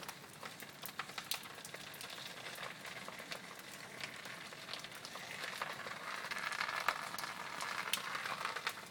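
Rain pattering, with many sharp drips and water falling from the eaves; the splashing grows louder about five seconds in.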